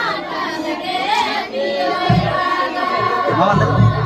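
A group of voices singing a Santali dong song together, with a few low thumps about halfway through and again near the end.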